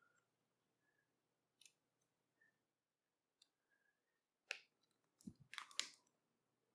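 Faint small clicks and taps of laptop parts being handled and fitted during reassembly, sparse at first, then a sharper click and a short run of clicks and taps near the end.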